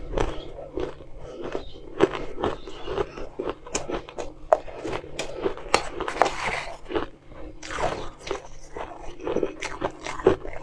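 Crunching and chewing on mouthfuls of crushed ice, a rapid run of crisp crunches, with a metal spoon scooping the ice from a metal bowl.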